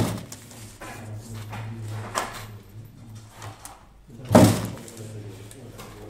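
Pneumatic eyelet press striking, a sharp stroke right at the start and another about four seconds in, each pressing a metal eyelet into the net's edge strip. Light clicks between the strokes, over a steady low hum.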